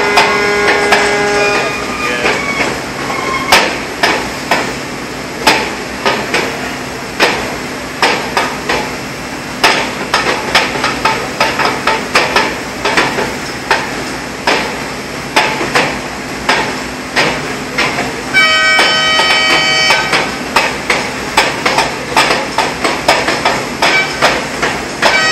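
Metal hammering: a long, irregular run of sharp strikes, at times several a second. About three-quarters of the way through, a pitched horn-like tone sounds for about two seconds.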